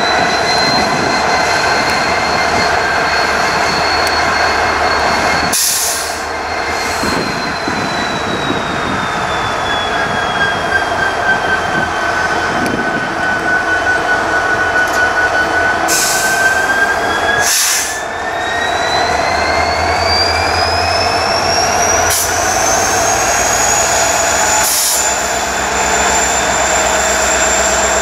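EMD GT46AC diesel-electric locomotive, with its 16-cylinder 710 two-stroke engine, running during startup. Over the drone, a high whine sinks in pitch and then climbs steadily in the second half. A few short bursts of noise cut in, two of them close together about two-thirds of the way through.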